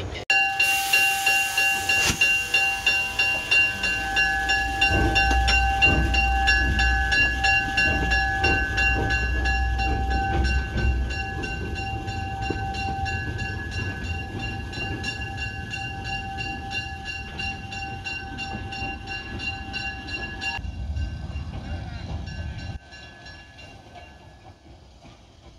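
Porter narrow-gauge steam locomotive working, its exhaust chuffing in a regular beat under a steady high steam tone that stops about twenty seconds in. The chuffing goes on more faintly and drops away near the end.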